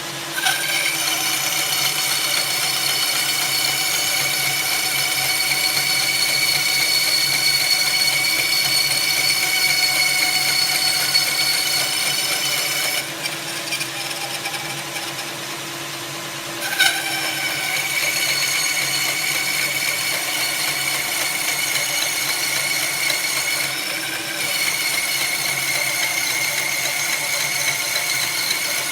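Electric drill driving a homemade wooden band saw, running with a steady high whine. It eases off for a few seconds about halfway through, comes back with a click, and dips again briefly later.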